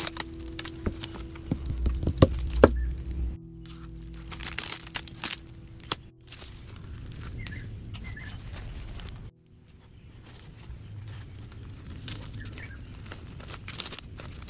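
Tissue paper being crinkled and torn by hand, in bursts of rustling with sharp crackles.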